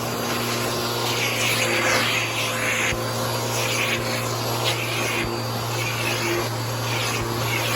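Bissell PowerForce Helix bagless upright vacuum cleaner running steadily, its motor humming while the suction hiss swells and fades every second or so as it is worked back and forth.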